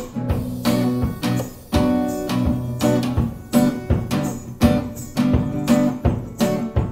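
Acoustic guitar strumming chords over a steady beat of a felt mallet struck on a drum.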